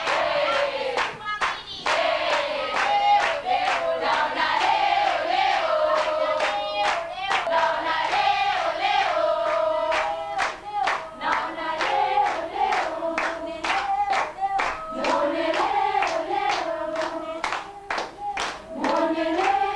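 A group of students singing an Ngoma song together, keeping time with steady hand claps.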